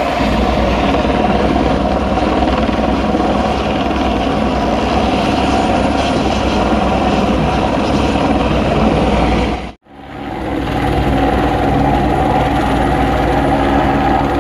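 Helicopter hovering close by, its rotor and turbine running steadily with a fast, even rotor chop. The sound cuts out for an instant about ten seconds in and then returns.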